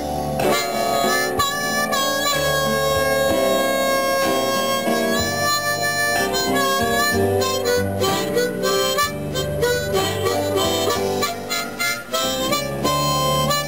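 Blues harmonica played with the hands cupped around a handheld microphone, long held notes and shorter phrases, over a blues backing track in E with a steady bass line.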